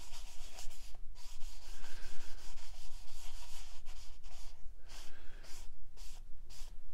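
A cloth rag rubbing gel stain into a bare wooden test block in a series of back-and-forth strokes with short pauses between them.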